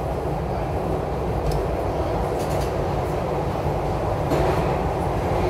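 SEPTA Broad Street Line subway train (Kawasaki B-IV cars) running through the tunnel, heard from inside the lead car: a steady rumble of wheels on rail, with a few faint clicks.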